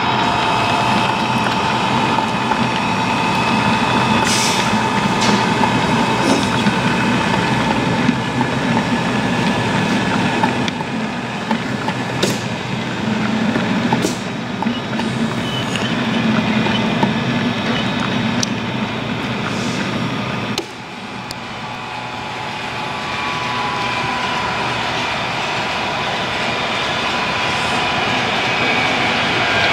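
Model train running on a DCC sound-fitted layout: a rake of coil wagons rolls past with a steady rumble and hum and a few sharp clicks. After a sudden drop in level about two-thirds of the way in, a diesel locomotive's engine sound from its sound decoder grows steadily as it approaches.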